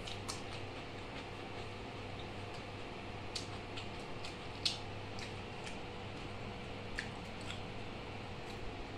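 Quiet eating by hand: a handful of faint, sharp clicks and ticks from chewing and fingers working rice on a steel plate, the loudest about halfway through, over a steady low hum.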